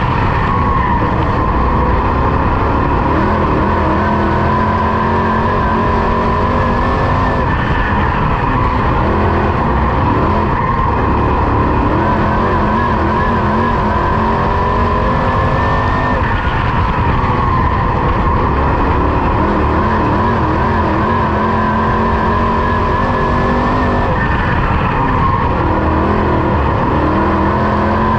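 Dirt late model race car's engine heard from onboard at race pace, loud and continuous, its pitch climbing along each straight and dropping as the driver lifts for the turns, about every eight seconds.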